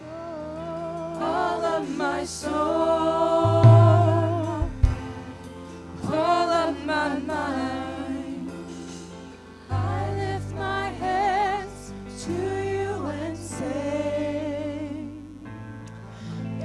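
A group of singers performing a gospel worship song live with a band of drums, bass and keyboard, with a few cymbal crashes. The music fades in at the start.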